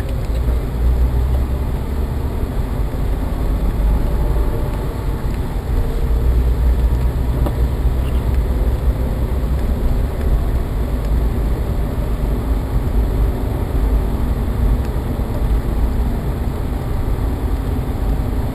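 Road and engine noise inside a moving car's cabin: a steady low rumble with tyre hiss over it.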